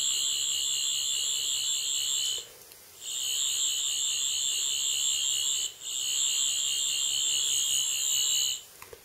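Sonic screwdriver universal remote playing its electronic sound effect in FX mode as it sends a channel-change command: a high-pitched buzzing whir, sounding three times, each burst close to three seconds long, with brief breaks between them.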